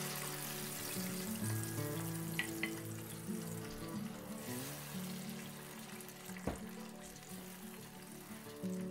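Grated tomato purée hitting hot oil in a frying pan and sizzling, loud at first and slowly dying down as it is stirred with a wooden spoon. A sharp knock, likely the spoon against the pan, comes about two-thirds of the way through.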